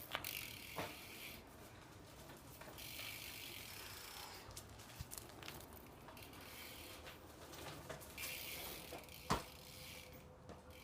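BMX bike's rear hub clicking in stretches as the bike coasts, with a few sharp knocks, the loudest about nine seconds in.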